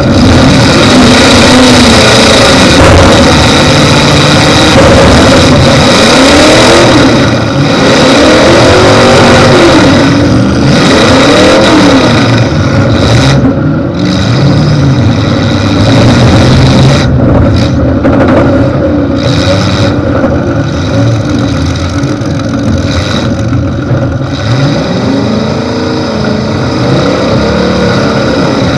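Demolition derby car's V8 engine running loud through short open exhaust stacks that stick straight up through the hood, revving up and falling back again and again as the car manoeuvres.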